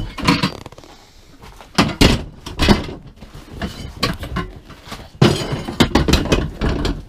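Knocks and clatter of ice-fishing gear and plastic being handled inside a fabric ice shelter, with a loud clunk about two seconds in and a run of clattering in the last two seconds.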